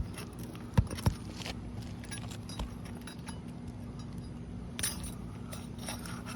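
Flat pry bar clinking and scraping against roofing nails and asphalt shingles as it is worked under a shingle: a sharp strike at the start, two more about a second in, then a few faint taps and a short cluster of clicks near five seconds.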